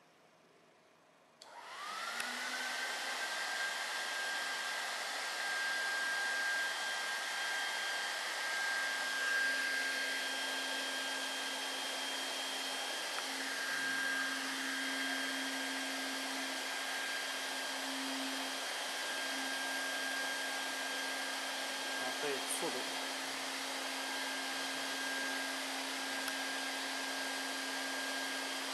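Hot air gun on a WELDY foiler ET banner welder switching on about a second and a half in. Its blower whine rises quickly to a steady pitch, then it runs with a steady rush of air. A lower steady hum joins about eight seconds in.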